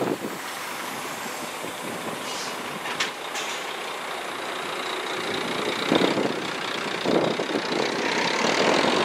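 Steady outdoor rumble of distant motor traffic, with short gusts of wind on the microphone about six and seven seconds in and the noise growing a little louder near the end.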